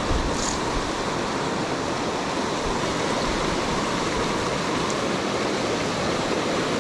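Fast mountain stream running high and rushing over rocks and logjams: a steady, unbroken rush of water, swift with storm runoff.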